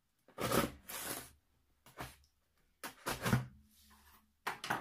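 Cardboard box being moved and handled on a wooden table: several short scraping, rustling bursts of cardboard.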